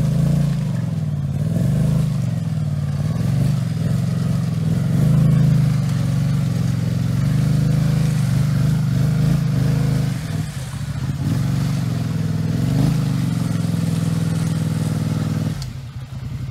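Four-wheel ATV engine working through deep mud, its pitch rising and falling as the throttle is opened and eased. Near the end it drops back to a low idle.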